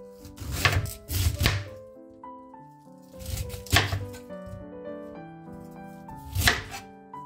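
Chef's knife slicing through cabbage onto a plastic cutting board, in short runs of strokes: a few about a second in, more around three and a half seconds, and one near the end. Light background music with held melodic notes plays underneath.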